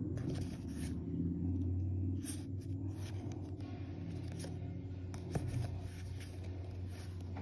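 Yu-Gi-Oh trading cards being flipped through by hand, the cards sliding and flicking against each other in faint rustles and light clicks, with one sharper click about five seconds in, over a low steady hum.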